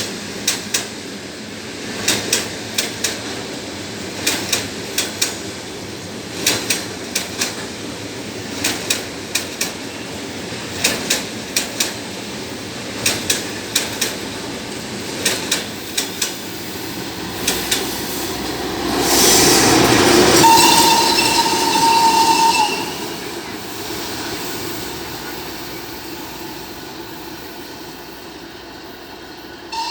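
Soviet VL10 two-section electric locomotive running light past at speed: its wheels beat out a steady clickety-clack in paired clicks over the rail joints. The locomotive swells to its loudest as it passes, sounding a steady high whistle for about two seconds. It then fades away.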